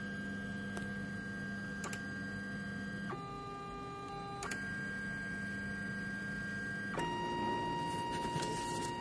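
Polaroid PlaySmart 3D printer's stepper motors whining in steady tones as the print head and bed move into position for centre calibration. The whine jumps abruptly to a different pitch about three seconds in, again a second and a half later, and once more near the end, each change marked by a faint click.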